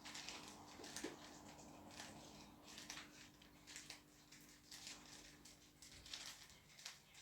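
Faint, irregular clicking of a Rubik's Cube's plastic layers being twisted through a quick sequence of turns, the last-layer moves that align the top.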